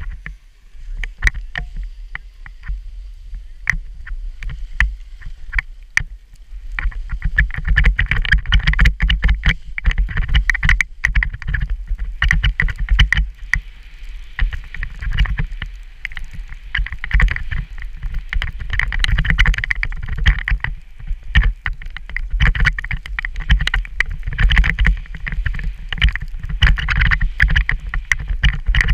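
Wind buffeting the camera's microphone while skiing downhill, with skis scraping and clattering over packed, groomed snow. It grows louder about seven seconds in as the skier picks up speed.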